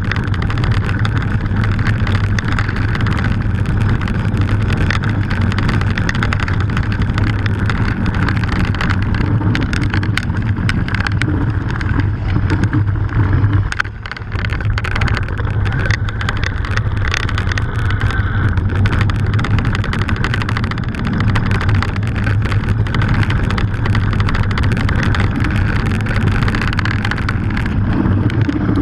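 Haibike mountain bike rolling fast down a loose gravel track: a steady rumble of tyres on stones mixed with wind on the handlebar-mounted microphone, with constant small rattles and clicks from the bike. It drops briefly about halfway through.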